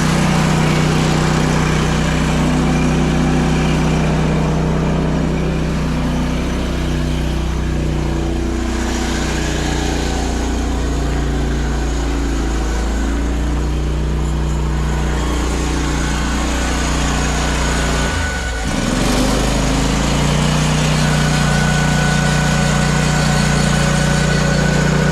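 An engine running steadily. Its speed wavers through the middle, then drops sharply for a moment about three-quarters of the way in before picking back up.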